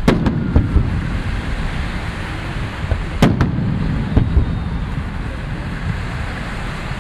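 Fireworks display: shells bursting in sharp bangs, a quick cluster at the start and another loud one about three seconds in, over a steady low rumble.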